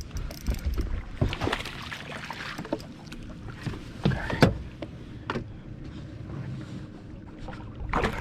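Splashing and knocks as a hooked largemouth bass is brought up alongside a fishing boat and landed, with several sharp bursts, the loudest about a second in and about four seconds in. Wind rumbles on the microphone throughout.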